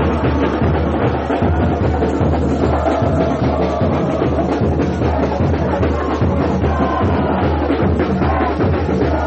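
Supporters' samba bateria drumming a steady, dense samba beat, with deep bass drums under smaller drums and percussion.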